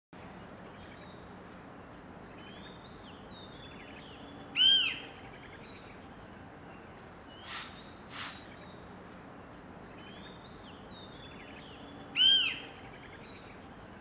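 Adult male banded yellownape woodpecker (Picus miniaceus malaccensis) calling: a single short, loud call that rises and falls in pitch, given twice about seven and a half seconds apart.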